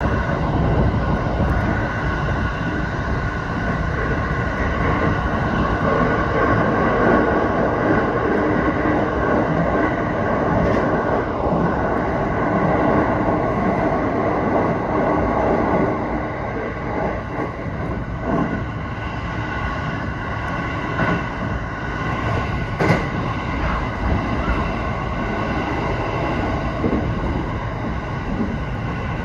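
Electric train running along the line: a steady rumble of wheels on rail with a faint steady whine, and a few short clicks in the second half.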